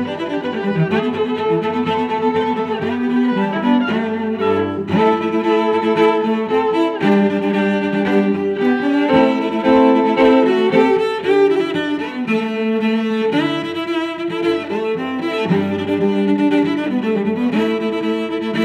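Background music played on bowed strings, violin and cello, moving through long held notes.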